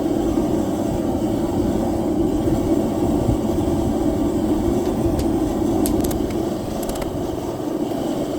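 Propane forge burner running with a steady roar, with a few faint clicks in the second half.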